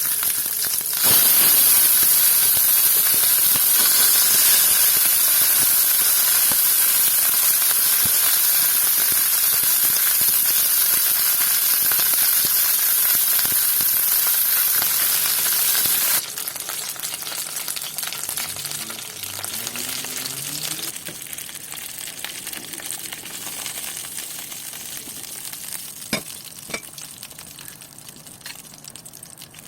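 Food sizzling in a hot pan: a loud, even hiss that drops abruptly to a quieter sizzle about halfway through, with a few light clicks near the end.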